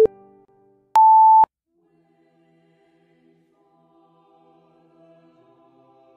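Countdown timer's electronic beeps: a short beep at the start, then about a second in a long, higher single-pitch beep lasting half a second as the count reaches one minute. After it, faint choral music begins.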